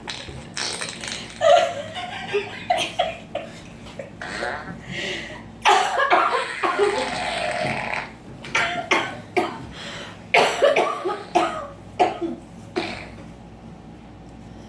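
A person laughing hard in irregular bursts, broken by coughing and wheezy breaths, with the longest, loudest stretch about six seconds in.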